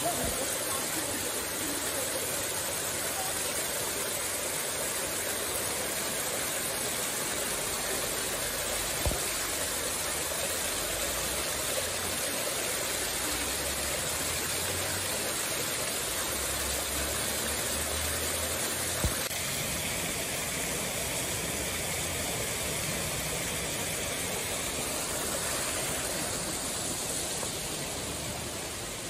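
Small rock waterfall pouring steadily into a pond, an even rushing splash with two brief knocks about a third and two thirds of the way through.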